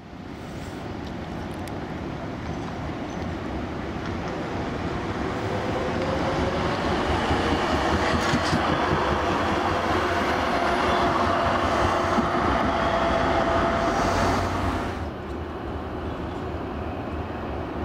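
Street tram passing close by on its rails: the rolling noise builds to its loudest over several seconds, carrying a slowly rising whine, then falls away sharply about fifteen seconds in, leaving a quieter rumble.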